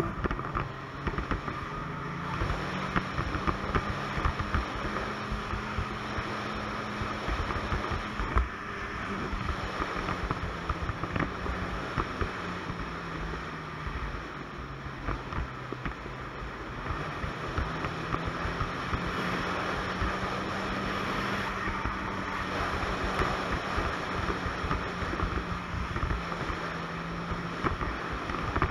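Ski-Doo Expedition 900 ACE snowmobile's three-cylinder four-stroke Rotax engine running steadily at cruising speed, its note dipping slightly in pitch in the middle and coming back up, with wind noise over the microphone.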